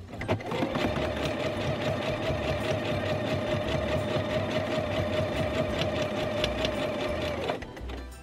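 Pfaff Quilt Ambition 2.0 computerised sewing machine stitching a straight seam at a steady speed, with a held motor hum and a fast, even stitch rhythm. It starts just after the beginning and stops near the end.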